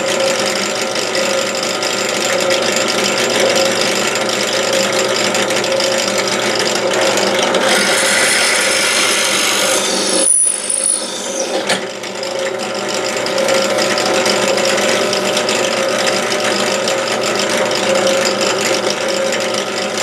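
Benchtop drill press running with a steady motor hum. From about seven and a half seconds in, a brighter cutting noise joins it for a couple of seconds as the bit is fed down and bores into the wood.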